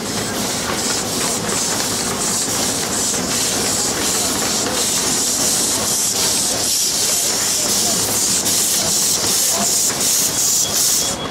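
Miniature 7¼-inch gauge steam locomotive moving past with a loud, steady hiss of steam from around its cylinders, pulsing in a chuffing rhythm of about four beats a second that is most even near the end.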